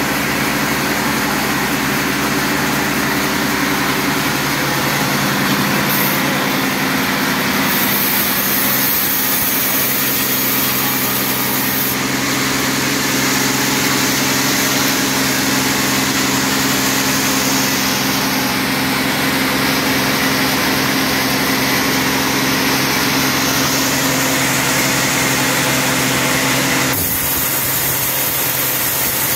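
Band sawmill running steadily, its vertical blade sawing lengthwise through a teak log, a constant motor hum under the hiss of the cut. The hiss changes a few times and shifts abruptly near the end.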